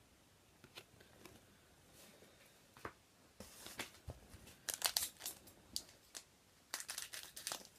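Trading-card pack wrapper crinkling and cards being handled, in short crackly bursts about three and a half seconds in and again near the end, with a few faint clicks before.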